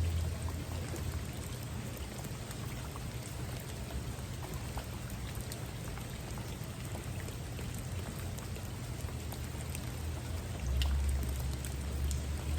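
Steady rain falling, with individual drops ticking through the hiss; a deep low rumble comes in near the end.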